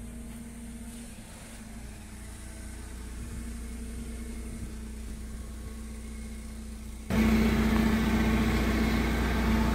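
Propane-fuelled Toyota 25 forklift engine running at a steady idle-like hum. About seven seconds in it suddenly becomes much louder and stays there.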